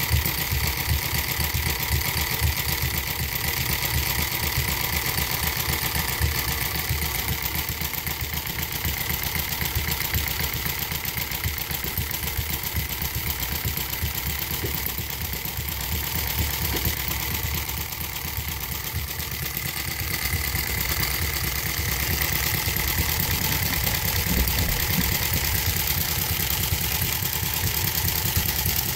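Homemade miniature vertical-twin four-stroke engine (3/4-inch bore, 1 1/4-inch stroke) running steadily on the bench with a lot of rattle. The two cylinders fire 180 degrees apart and then it coasts a revolution and a half, an uneven firing order copied from the old John Deere twins. It gets a little quieter around the middle, then picks up again.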